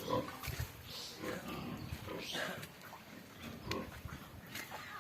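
Pigs in a pig farm calling in short grunts, one every half second to a second.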